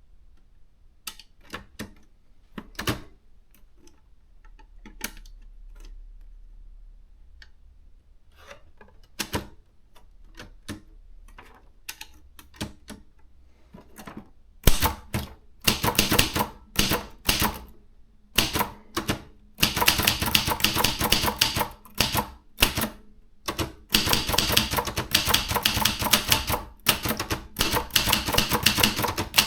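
Maritsa 30 portable manual typewriter being typed on. For the first half there are only a few scattered, faint clicks. From about midway come fast, loud runs of key strikes in bursts with brief pauses between them.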